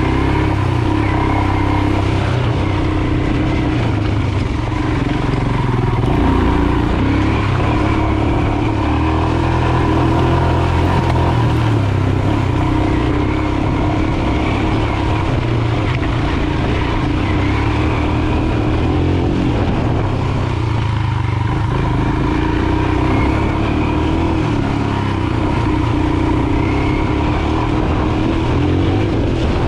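Royal Enfield Himalayan's 411 cc single-cylinder engine running under way, its pitch rising and falling gently as the throttle changes.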